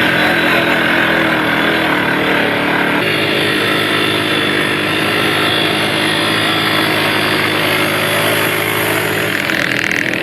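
Quad bike engine running steadily under way, its pitch stepping up about three seconds in and shifting again near the end.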